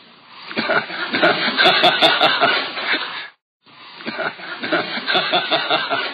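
Lecture audience laughing, in two bouts of rapid ha-ha pulses. The sound cuts out completely for a moment between them.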